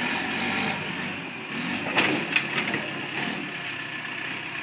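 Backhoe loader's diesel engine running steadily as it works its front bucket in the dirt, with a few sharp knocks about two seconds in.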